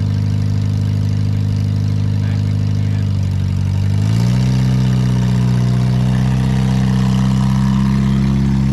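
Monster truck engine running steadily at idle, then revving up about three to four seconds in and holding at a higher, steady speed.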